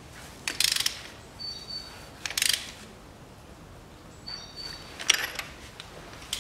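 Ratchet wrench on an extension clicking in three short bursts as it is swung back, snugging a new spark plug into the cylinder head by hand feel rather than to full torque. A brief high squeak comes twice between the bursts.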